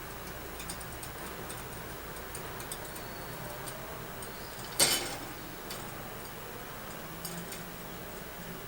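Scattered light clicks and taps, with one sharp, louder clink about five seconds in that rings on briefly.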